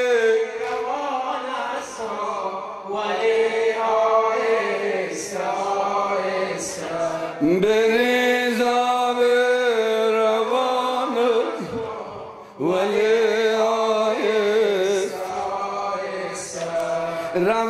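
Unaccompanied male chanting of a noha, a Shia mourning lament, sung in long held melodic phrases with short breaks between them.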